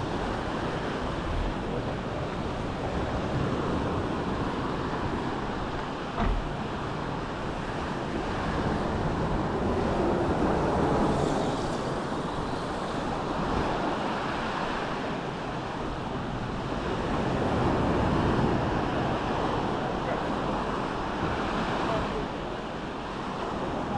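Sea surf washing onto the beach in slow swells, a steady rushing that rises and falls every several seconds, with a brief thump about six seconds in.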